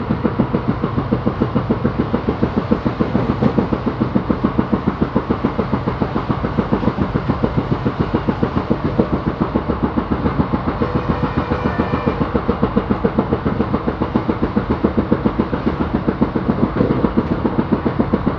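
Wheels of Indian Railways ICF passenger coaches clattering over rail joints at speed: a fast, steady clickety-clack of about seven knocks a second.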